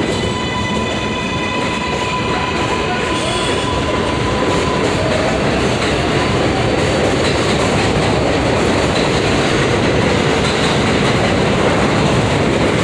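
New York City 7 subway train running between stations. A steady motor whine holds for the first few seconds, then fades under the steady rumble and clatter of wheels on rail, which grows slightly louder.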